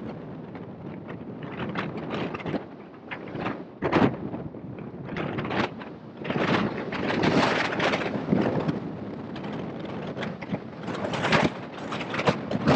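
Rushing airflow of a hang glider in flight buffeting the microphone, surging and easing in gusts, with the strongest gusts about four seconds in, around seven to eight seconds, and again near the end.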